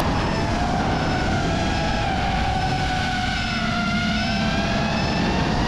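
FPV quadcopter's electric motors and propellers whining in flight, the pitch sinking gently and rising again near the end as the throttle changes, over heavy wind rumble, as picked up by a GoPro Hero 12's onboard microphone.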